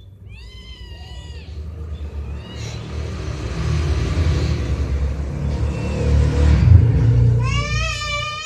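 A kitten meows once, then a low rumble swells over several seconds and fades; near the end the kitten starts meowing again, several calls in a row.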